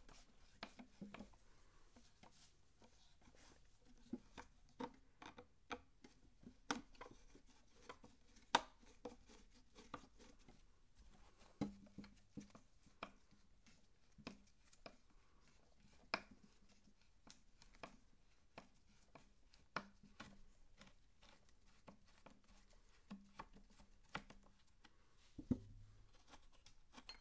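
Quiet, scattered metal clicks and scrapes of a flathead screwdriver working a tight screw loose from the housing of a vintage Remington chainsaw, a sharper click every second or so with a few louder ones.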